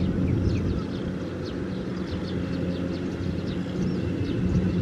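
Kubota M6040SU tractors' four-cylinder diesel engines running steadily under load, hauling a trailer of rice sacks through mud, a little louder near the end. Many short high chirps sound over the engine noise.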